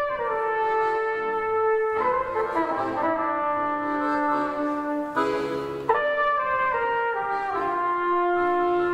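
Trumpet and piano accordion playing a melody together, the trumpet holding long notes that step from one pitch to the next over the accordion's sustained chords.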